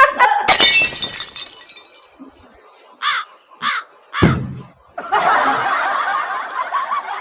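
A sudden crash-like burst of noise about half a second in. Then three short hiccups about half a second apart, the hiccups returning just after they seemed to have stopped. A couple of seconds of steady noise follow near the end.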